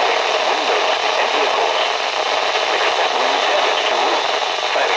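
Steady static hiss from a weather radio receiver on a weak signal, with a faint voice barely coming through under the noise.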